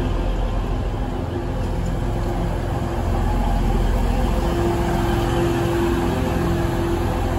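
TransPennine Express diesel multiple unit's underfloor engines running with a steady drone and low rumble beside the platform.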